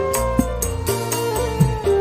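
Instrumental music: a held, gliding melody line over a steady bass, with a few sharp drum strokes.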